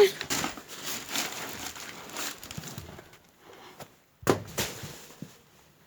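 Rustling and shuffling movement, then a sharp thump a little past four seconds in with a second, smaller knock just after it: a thrown sneaker landing.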